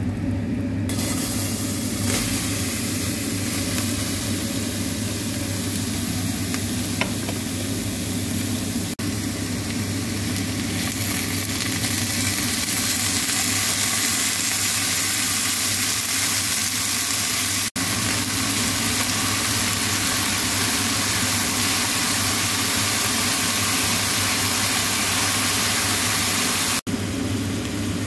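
Sliced peppers sizzling as they fry in oil in a frying pan: a steady hiss over a low, steady hum, broken off for an instant a few times.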